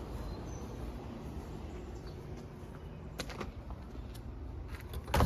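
Quiet steady background with a few light clicks about three seconds in, then a loud knock and rattle near the end as a door is opened.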